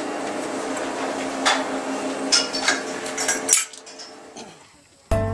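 Several sharp metal clinks from a cow collar's snap and the steel stall pipes as the collar is fastened, over a steady hum. The sound fades out and acoustic guitar music starts near the end.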